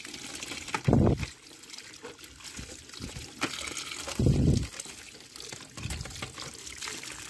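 Water running and trickling as a muddy toy vehicle is rinsed clean. Two louder low thumps come about a second in and at about four and a half seconds.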